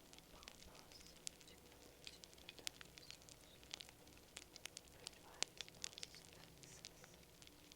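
Campfire crackling: wood burning with irregular sharp snaps and pops, a few louder cracks standing out, over a soft hiss.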